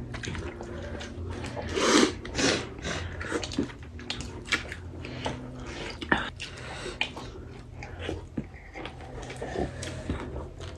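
Close-up eating sounds: biting and chewing food, with many small irregular wet clicks and smacks, the loudest about two seconds in. A low steady hum runs underneath.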